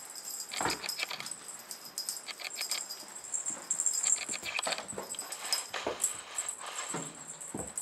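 Bengal kitten playing with a feather wand toy on carpet: steady scratching and rustling, with a couple of soft thumps about a second in and near the end.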